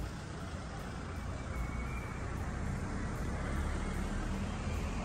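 Steady outdoor street ambience, mostly a low rumble, growing a little louder partway through.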